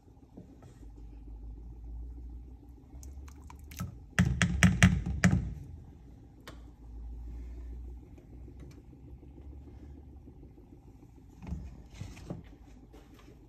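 A wooden spoon knocked several times in quick succession against the rim of a saucepan of rice, about a second of sharp knocks, over a low steady rumble; a few fainter clicks follow near the end.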